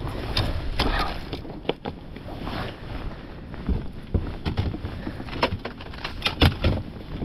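Water slapping against a bass boat's hull and wind on the microphone, with scattered knocks and clicks from footsteps and gear on the deck.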